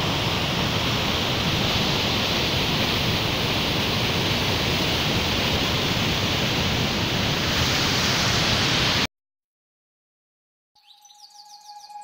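Steady rush of a waterfall's white water pouring down rock slabs, cutting off suddenly about nine seconds in. Near the end a faint chiming tune fades in.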